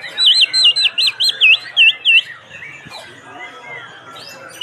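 Oriental magpie-robin (kacer) singing: a quick run of about eight loud, clear whistled notes swooping up and down, followed by softer twittering.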